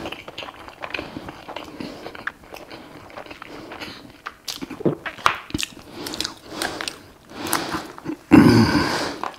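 Close-miked eating: a person biting and chewing food, with many short clicks, and a louder burst of noise about eight seconds in that is the loudest moment.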